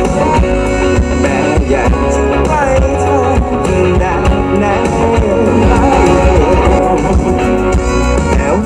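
A live band playing a pop-rock song loudly: a man singing over electric guitars, keyboard and drums.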